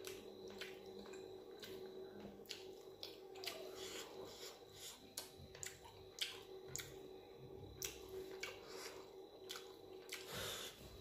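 Close-up eating sounds of dal and rice eaten by hand: many short wet clicks and smacks of chewing, with soft squishes of fingers working rice into dal. A faint steady hum lies underneath.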